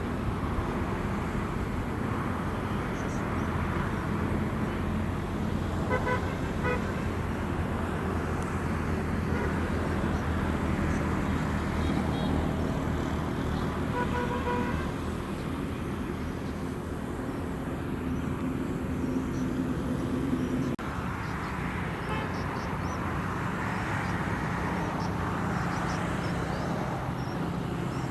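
Road traffic: motor vehicle engines running and passing steadily, with short horn toots about six seconds in and again near the middle.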